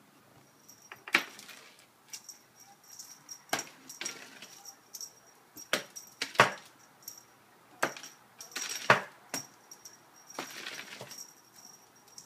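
A cat playing on a carpeted cat tree: irregular knocks and scuffs of paws and body against the perch, with a light metallic jingle sounding along with many of them.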